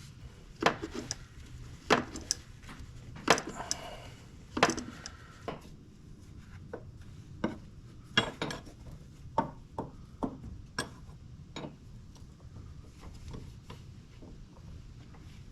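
Irregular metallic clinks and knocks of tools and fittings being handled while fitting a power steering line, the louder ones in the first few seconds and lighter taps after.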